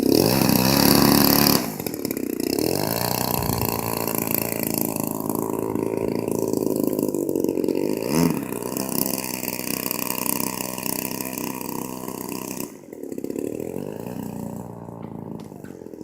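Large radio-controlled model airplane's engine running at high power, loudest in the first second and a half, then rising and falling in pitch, with a quick pitch swing about eight seconds in. Its level drops suddenly about thirteen seconds in, and it runs on fainter.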